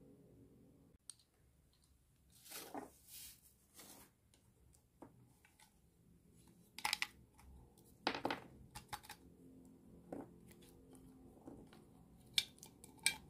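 Small plastic watercolour half pans being worked out of a metal tin and set down on a wooden desk: scattered faint clicks, taps and scrapes in short clusters.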